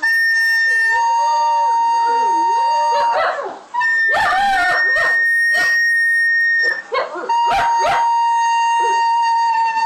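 A dog howling along to held, very steady high notes. The note jumps up about an octave some four seconds in and drops back about three seconds later, while the howl wavers beneath it; a few sharp knocks come near the end.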